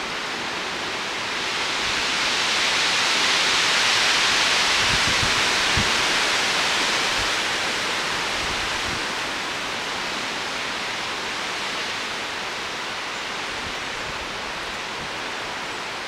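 Strong windstorm gusts rushing outside, a steady hiss that swells about two seconds in and eases off gradually after the middle.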